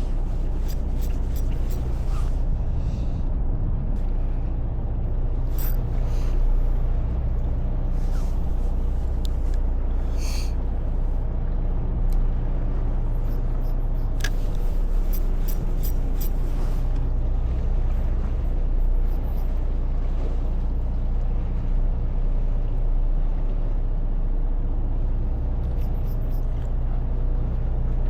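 Fishing boat's engine running steadily: a continuous low hum, with a few faint clicks and knocks on top.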